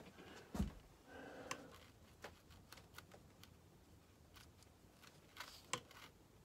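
Faint, scattered clicks and taps of a watercolour brush being worked against the palette and paper, with a soft thump about half a second in and a sharper click near the end.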